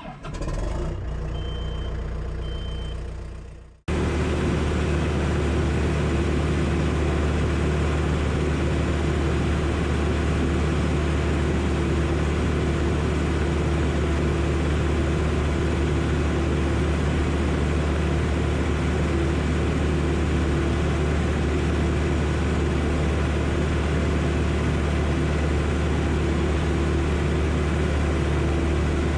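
Diesel engine of heavy earthmoving equipment running steadily at a constant speed with a loud low drone, starting abruptly about four seconds in and holding unchanged.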